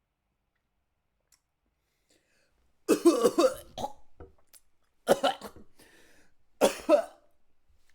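A person coughing in three fits a second or two apart, each a quick run of several coughs, the first fit the longest.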